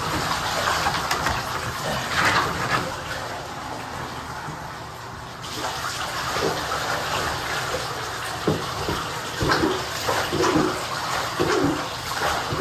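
Water running and splashing in a bathtub as a dog is washed in it. The flow grows louder about halfway through, with short splashes near the end.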